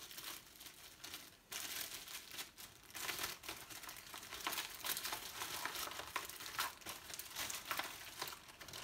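Clear plastic bags and a soft plastic water pouch crinkling and rustling as they are handled, with small clicks. Louder from about a second and a half in.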